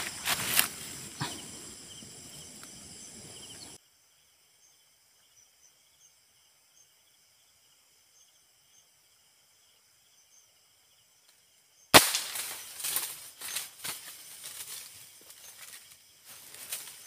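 Footsteps crunching and rustling through dry leaf litter, with insects trilling steadily at a high pitch. Then a long near-silent stretch with only faint insect trills, broken about twelve seconds in by a single sharp crack, after which the footsteps and rustling resume.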